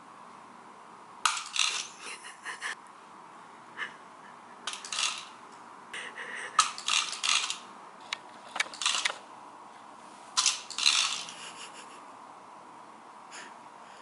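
Remote-control toy cobra's jointed plastic body rattling against a tile floor in short clattering bursts as it wriggles, with pauses of a second or two between bursts.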